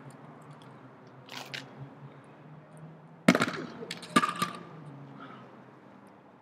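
Steel beer keg set down hard on concrete: a loud clank a little over three seconds in, then a second clank about a second later with a short metallic ring.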